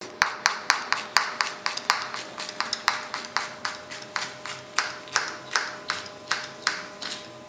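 Kitchen knife rapidly chopping a red chili pepper on a cutting board: sharp, even knocks of the blade on the board, about four a second.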